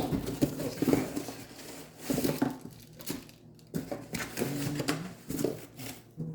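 Parts of a new coffee grinder and its packaging being handled: irregular plastic clicks and knocks with some rustling.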